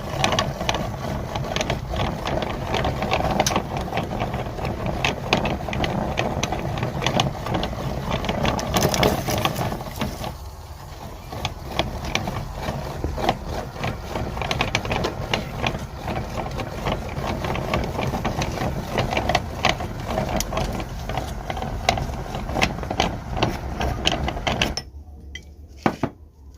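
Electric meat grinder running while it crushes plastic Ludo dice, a steady motor noise full of sharp cracking and clicking. The grinder stops abruptly near the end, leaving a couple of single clicks.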